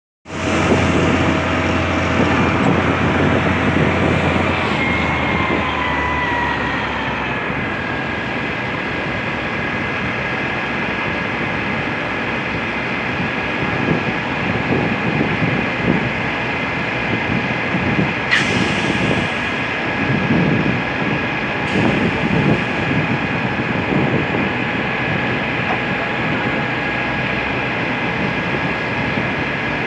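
Heavy construction machinery running steadily at a concrete pour. A high whine glides down in pitch about five to seven seconds in and then holds steady. There is a sharp click about eighteen seconds in.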